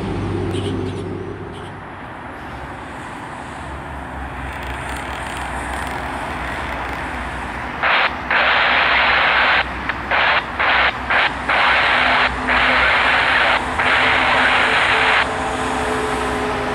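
A steady low rumble of distant traffic, then, about eight seconds in, loud radio static from a scanner that cuts on and off abruptly several times as the squelch opens and closes, for about seven seconds.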